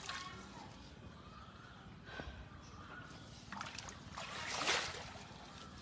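Shallow muddy water sloshing as a man wades and moves his hands through it, with a louder splash about four and a half seconds in.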